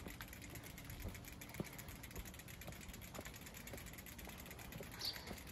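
Bicycle rolling along a paved path: a steady low tyre rumble with scattered light clicks and rattles from the bike, and one brief high squeak near the end.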